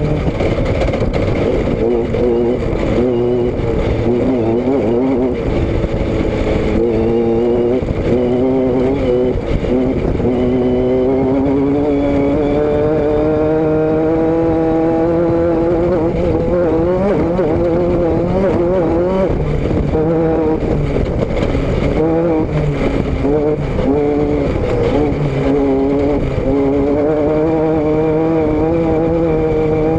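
Motor vehicle engine and exhaust running on the move, the note wavering steadily, climbing slowly for a few seconds near the middle and then dropping back.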